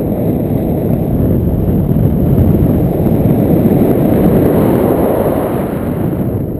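Wind rushing over the camera microphone in flight under a tandem paraglider: a loud, steady rumbling buffet that swells through the middle.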